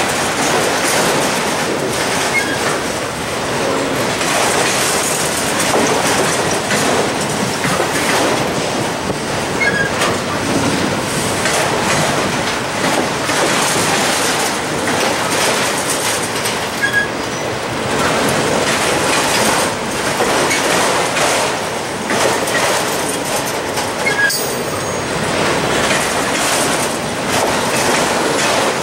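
Freight train of autorack cars rolling past: a steady rumble of steel wheels on rail with clickety-clack over the rail joints and a few brief, high wheel squeaks.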